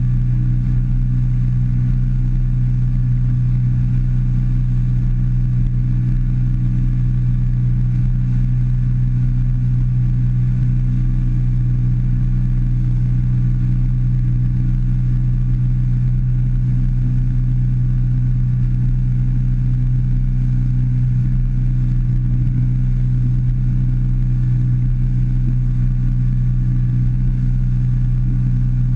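150-horsepower outboard motor running at a steady cruising speed with the boat on plane: a loud, even drone that holds the same pitch throughout.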